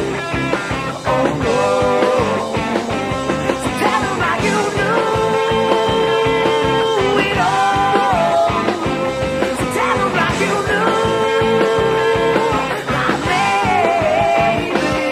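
Rock band playing with a sung vocal line; the singer holds long notes about a third of the way in and again near two-thirds. The recording is a demo ripped from cassette tape.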